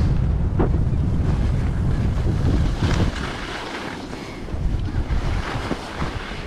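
Wind buffeting a GoPro Hero 9's microphone while skiing downhill: a heavy rumble for about the first three seconds that then eases. Under it is the hiss and scrape of skis sliding on packed snow.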